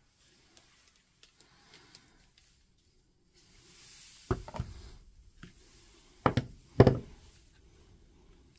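Workbench handling sounds: faint small clicks, a brief hiss, then a few sharp knocks as the soldering iron and pliers are put down. The two loudest knocks come about six and seven seconds in.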